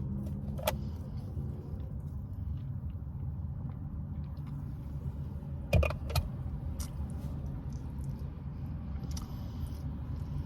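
Steady low hum inside a car's cabin, with a few sharp clicks or taps, the loudest a close pair about six seconds in.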